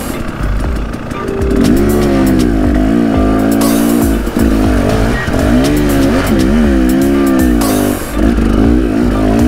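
Husqvarna dirt bike engine revving up and down in uneven swells as the throttle is worked, with a few brief rushes of noise about four and eight seconds in.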